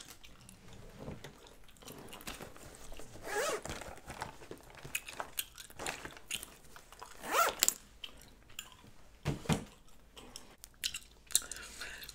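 Close-miked gum chewing: irregular wet smacks and clicks of a mouth working a piece of gum, with two louder smacks about three and a half and seven and a half seconds in.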